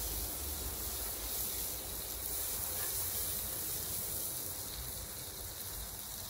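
Hash browns sizzling on a hot flat-top griddle: a steady frying hiss over a low, even rumble.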